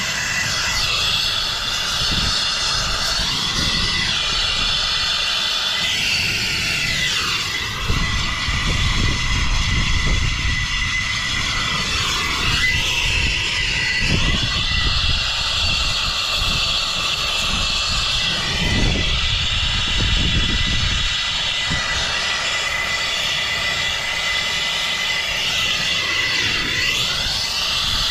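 Turbo torch burning steadily with a rushing hiss and a faint high whistle while heating copper pipe for sweat soldering. Its tone sweeps up and down a few times.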